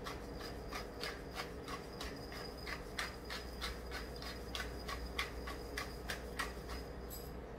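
Hand pepper grinder twisted to grind peppercorns: a steady run of dry ratcheting clicks, about three to four a second, that stops about seven seconds in.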